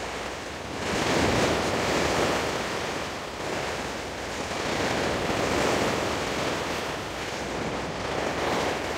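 Sea waves washing against the rocks of a breakwater, a steady rush that swells and eases every few seconds, with some wind on the microphone.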